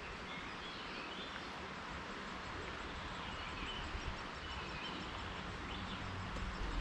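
Steady outdoor background hiss with faint, scattered bird chirps.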